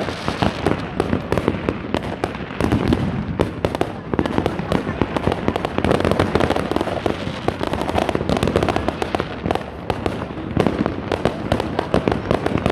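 Many fireworks going off at once: a dense, continuous crackle of overlapping bangs and pops with no let-up.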